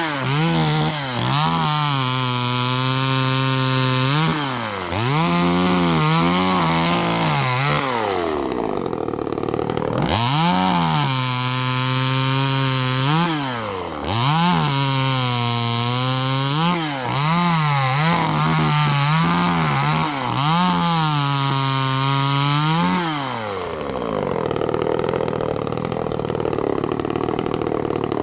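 TimberPro CS2500 25.4 cc two-stroke top-handle chainsaw run at full throttle in repeated bursts while cutting brush, its pitch dipping and climbing back between cuts. It drops to idle once partway through and again near the end.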